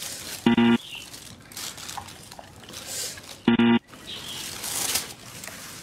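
A chocolate Labrador chewing raw food at its plate, with wet, crackly mouth sounds, broken twice by a short, steady buzzing tone that starts and stops abruptly, about half a second in and again about three seconds later.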